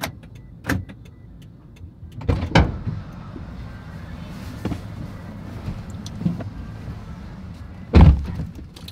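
Car door sounds: a few clicks and two thumps a little over two seconds in, then a loud door slam about eight seconds in, over a low steady rumble.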